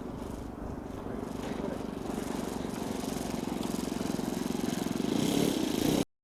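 Radio-controlled model airplane's engine buzzing steadily, growing louder as it comes closer, then cutting off suddenly near the end.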